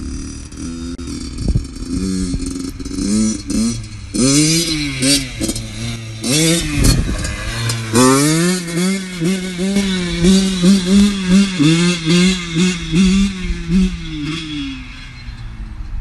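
Motorcycle engine revved up and down several times, then held at a fairly steady pitch that wavers quickly, two or three times a second, before dropping away near the end.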